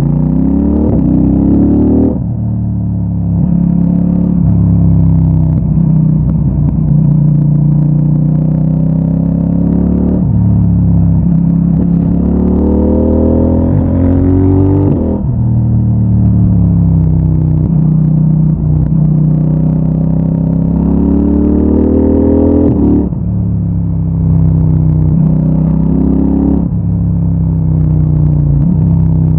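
CFMOTO 800NK motorcycle's parallel-twin engine through its stock exhaust, accelerating up through the gears: the pitch climbs and drops sharply at each shift, about five times, with the throttle briefly closed twice.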